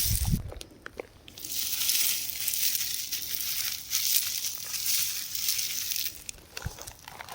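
Rock crumbling apart, with a few low thumps at the start, then a dense high crackling for about five seconds that fades near the end.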